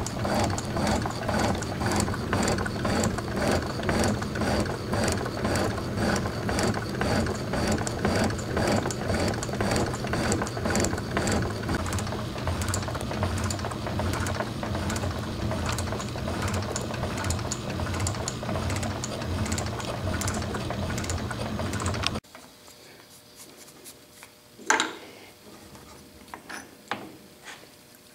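South Bend metal shaper running, its ram stroking back and forth as the tool takes a roughing cut on an aluminum casting, a steady machine clatter with a regular beat of strokes. It stops suddenly about 22 seconds in, leaving a few faint clicks and knocks.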